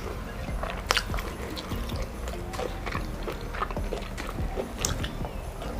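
Close-miked chewing of food, with irregular wet mouth clicks and smacks.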